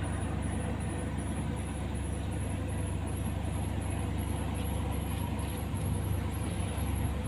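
Steady low drone of a boat motor on the river, with a high-pitched insect chirping over it two or three times a second.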